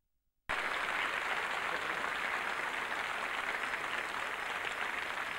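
Studio audience applauding, a dense steady clapping from a large crowd that cuts in suddenly about half a second in.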